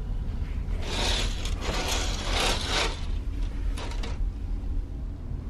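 Fabric curtain being drawn by hand, a rough swishing and rubbing of cloth and runners for about two seconds, then a short second pull. A steady low drone runs underneath, the ferry's engines.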